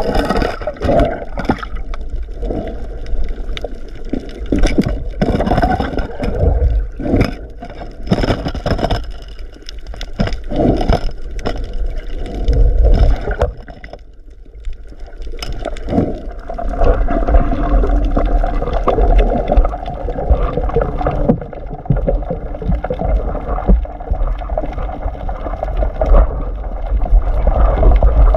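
Underwater sound picked up by an action camera in its waterproof housing as the diver swims: water rushing and gurgling past the housing over a low rumble, with many knocks and clicks from handling in the first half and a steadier rush in the second half.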